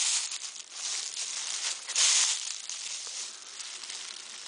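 Footsteps through dry fallen leaves: crunching and rustling in repeated bursts as someone walks across the leaf-covered forest floor.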